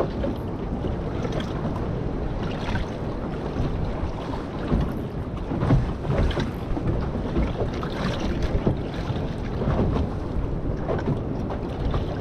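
Strong wind buffeting the microphone, gusting unevenly, with sea water washing and slapping around a small boat in a heavy swell.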